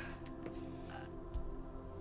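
Quiet film score music holding a sustained chord.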